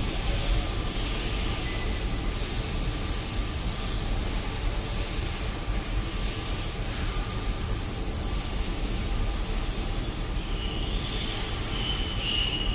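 Steady machine-shop background noise: a constant hiss over a low hum, with faint steady tones, from machinery running nearby.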